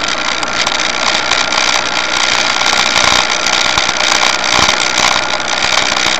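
Steady road and wind noise of a car travelling at motorway speed, heard from inside the cabin, with the engine running underneath.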